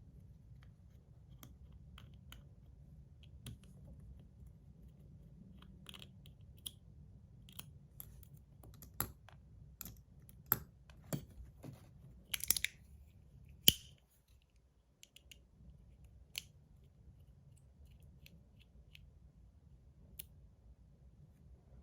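Small sharp clicks and taps of a screwdriver and small metal parts as the side of a slider fidget is taken off, scattered and irregular, busiest in the middle with two louder clacks close together, then only a faint tick or two.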